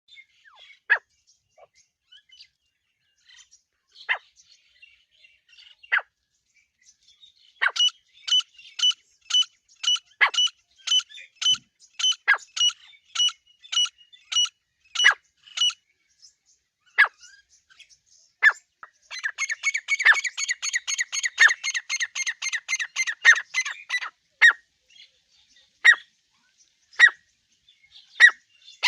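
Recorded wild partridge (teetar) calls, the kind used as a hunting lure. First come scattered sharp single notes that fall in pitch. From about eight seconds in there is a run of ringing notes repeated about twice a second, then a fast harsh chatter for about five seconds, then single notes again.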